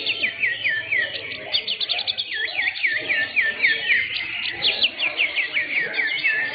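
Cucak hijau (greater green leafbirds) singing together, several fast runs of repeated downward-sweeping and V-shaped whistled notes, several notes a second, overlapping without a break.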